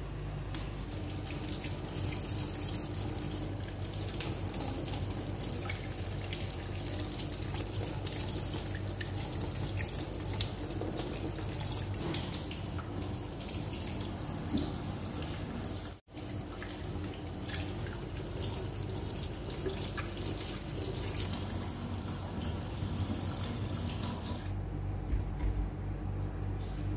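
Kitchen tap running steadily into a sink as charred ginger is washed clean. The water cuts out suddenly for an instant a little past halfway, and near the end gives way to quieter handling sounds.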